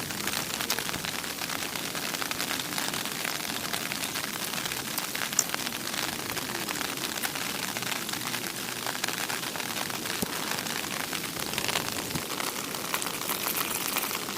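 Steady rain falling on a surface, a continuous hiss dotted with the ticks of individual drops, with one sharper drop about five and a half seconds in.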